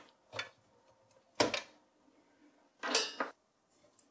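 Three short clicks and scrapes of SATA cable plugs being handled and pulled from a desktop PC's motherboard. The loudest comes about a second and a half in, and a longer plastic scrape follows near three seconds.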